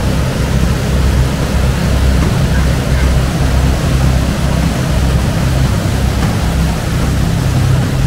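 Waterfall pouring close by: a loud, steady rush of water with a strong low rumble underneath.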